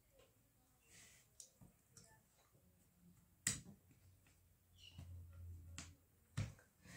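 Near silence with a few scattered light clicks and taps. The loudest comes about three and a half seconds in, with another near the end.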